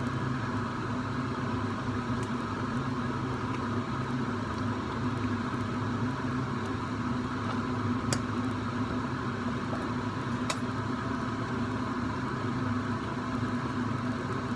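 Steady machine hum, as from a kitchen appliance fan, over a low even hiss of chilli sambal frying in a stainless steel saucepan. Two light clicks come about eight and ten and a half seconds in, while a silicone spatula stirs the pan.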